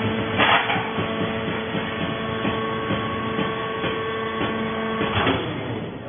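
Vertical hydraulic baler's power unit running with a steady whine while the ram moves, with a short rush of noise about half a second in as the control valve is worked. About five seconds in, another rush and the whine cuts off as the ram reaches the end of its travel.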